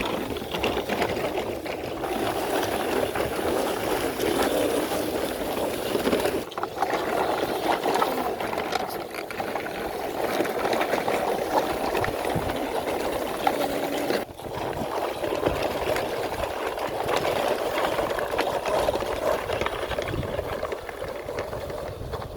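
Plastic toy truck, loaded with toy vehicles, rolled along the ground, its wheels and load rattling continuously. The sound breaks off abruptly twice.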